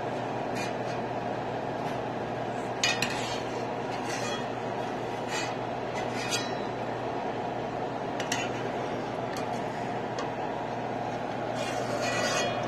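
A perforated metal slotted spoon knocking and scraping against a stainless steel frying pan while fried murukku are scooped out of the hot fat. The knocks come singly every second or two, with a busier cluster near the end, over a steady background hum.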